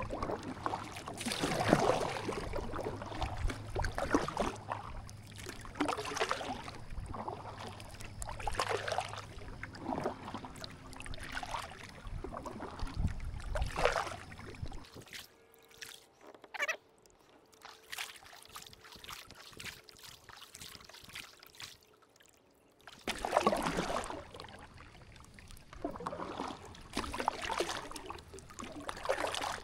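Kayak paddle strokes in calm water: a double-bladed paddle dipping and pulling about every two seconds, each stroke a short splash and trickle. The strokes stop for about eight seconds midway while the kayak glides, then start again.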